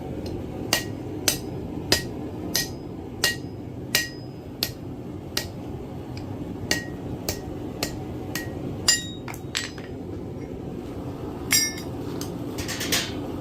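Blacksmith's hammer striking small hot iron on an anvil, with regular ringing blows roughly every two-thirds of a second. A few quicker, irregular strikes follow later on.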